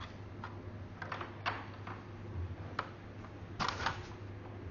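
Scattered light clicks and knocks of an LED display module and its pull handle being handled and pulled off the magnetic cabinet, with the loudest clack cluster a little past halfway. A steady low hum runs underneath.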